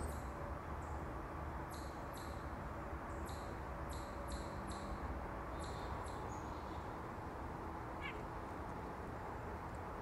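White-breasted nuthatch giving a string of short calls, about eight over four seconds, that stop about six seconds in.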